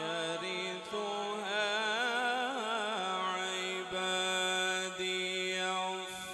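Male Quran reciter's voice in melodic tilawat, amplified through a handheld microphone, stretching a long vowel without words. The note wavers in quick ornaments at first, then holds one steady pitch for about three seconds and breaks off just before the end.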